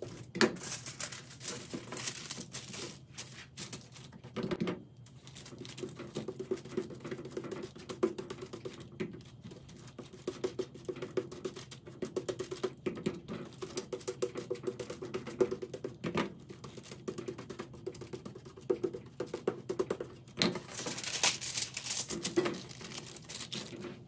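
A tint brush dabbing and stroking hair colour onto hair swatches on aluminium foil: many quick, irregular taps and brushing strokes. Aluminium foil crinkles as it is folded over the swatches.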